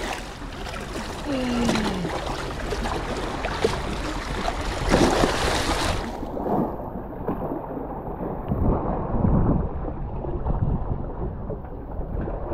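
Small waves washing and splashing against jetty rocks, with wind on the microphone. A hooked striped bass is being landed in the wash, and the sound turns duller about halfway through.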